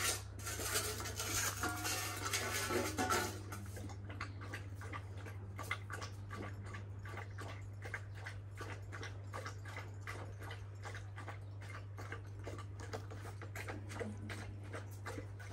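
Young Kangal dogs eating food mixed with yoghurt from a bowl: a quick run of wet lapping and chewing clicks, about four a second, after a few seconds of louder mixed noise at the start.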